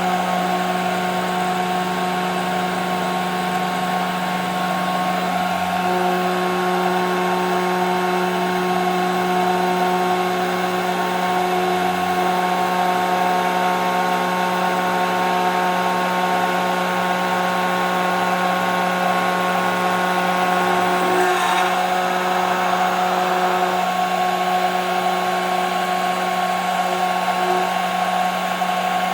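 CNC machine running on plexiglass: a steady machine hum and whine, with fainter tones starting and stopping along the way and a brief noise about 21 seconds in.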